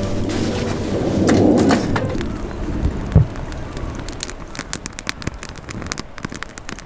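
Split-wood campfire burning in a steel fire pit, crackling and popping with many sharp, irregular snaps. A rushing noise fills the first two seconds, and a single louder knock comes about three seconds in.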